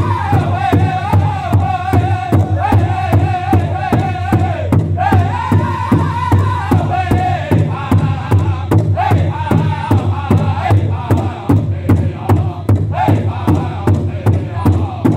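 Powwow drum group singing together in high voices over a steady, even beat on a large shared bass drum, struck in unison by the seated singers. The melody steps down near the start and rises again about five seconds in.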